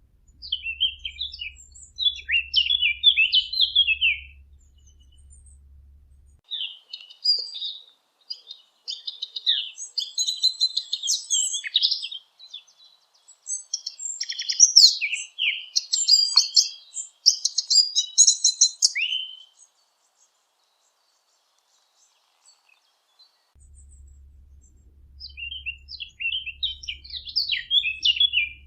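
A Sylvia warbler singing: long phrases of rapid, scratchy warbling, several seconds each, separated by short pauses, with a longer quiet gap before the last phrase. A faint low hum sits under the first and last phrases.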